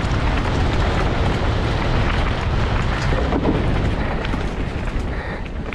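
Wind rushing over a GoPro's microphone during a downhill mountain bike run, with the bike rattling and knocking over rough ground.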